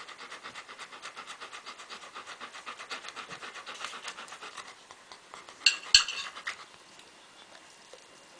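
Bernese Mountain Dog panting rapidly and steadily, about four or five breaths a second, then easing off. About six seconds in, a fork and knife clink sharply twice as they are picked up from the plate.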